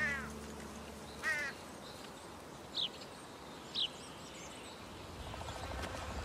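Birds calling over a steady outdoor hiss: two harsh, falling calls near the start, then two short, high chirps about three and four seconds in.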